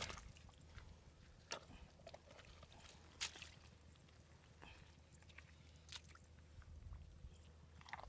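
Faint, scattered crackles and squelches of bare hands digging into mud and dry rice stubble, with the sharpest crackle about three seconds in.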